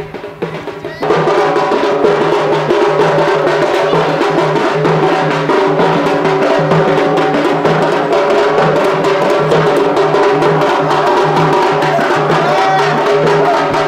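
A drum beating a dance rhythm, joined about a second in by louder music that carries a melody over the drumbeat.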